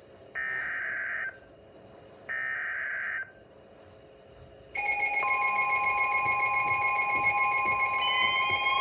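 NOAA Weather Radio alert signalling: two bursts, each about a second long, of buzzy digital data tones (the SAME header that codes the warning), about a second apart. Then, at about five seconds in, several weather alert radios start sounding steady alert tones together, including the 1050 Hz warning-alarm tone. Slowly rising siren-like tones join near the end.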